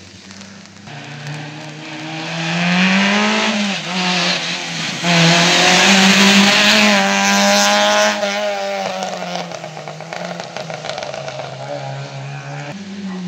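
A small race hatchback's engine revving hard as it drives past. It builds up, dips in pitch once about three and a half seconds in, climbs again and is loudest through the middle, then fades. Tyre hiss on wet tarmac runs under it.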